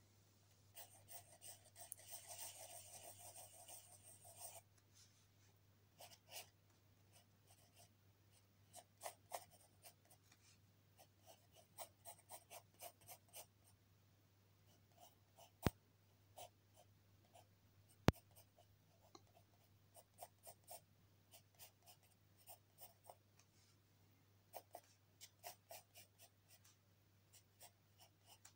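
Faint pencil sketching on paper: short scratchy strokes in clusters, with a longer run of continuous scribbling about a second in. Two sharp clicks about two seconds apart, a little past the middle, are the loudest sounds.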